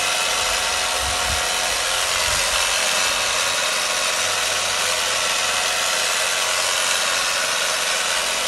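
Electric carving knife running steadily as its blades cut through a stack of cooked chicken.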